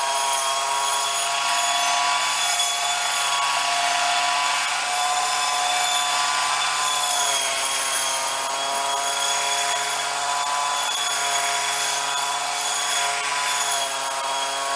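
Gas-powered Snapper commercial brush cutter with a circular saw blade running steadily at high speed, its pitch rising and falling slightly as it is swung through wet grass.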